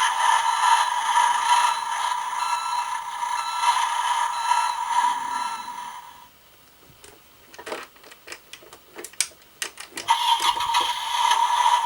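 Dickie Toys fire engine's electronic sound effect playing through its small speaker as a steady, buzzy tone. It cuts out about six seconds in, leaving a few seconds of clicks and clatter, and starts again about ten seconds in.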